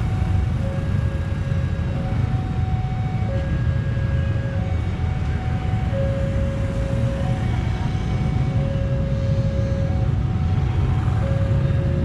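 Railway level-crossing warning alarm sounding, alternating a low and a high electronic tone, each held about a second, over a steady low rumble of passing vehicles.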